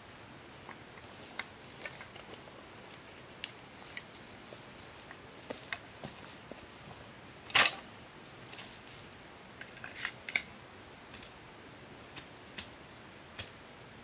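Steady high-pitched drone of forest insects, with scattered light clicks and knocks of sticks being handled on the ground, the loudest a sharp knock about halfway through.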